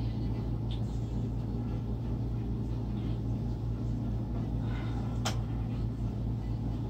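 Electric floor fan running close by: a steady low hum and whir with a fast, even pulse. A single sharp click comes about five seconds in.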